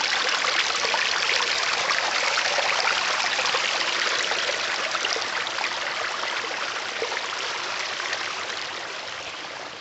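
Small forest stream flowing: a steady rush of running water, growing fainter over the last few seconds.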